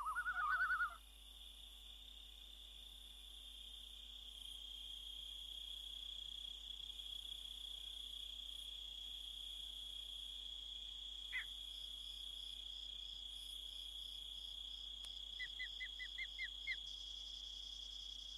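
Crickets trilling: one steady high trill with fainter, evenly repeated chirps above it and a quick run of about six chirps near the end. A brief warbling call sounds in the first second.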